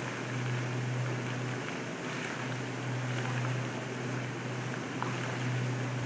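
Water jets of an indoor fountain arcing and splashing into a shallow pool: a steady hiss of falling water, with a low hum under it that swells and fades every second or so.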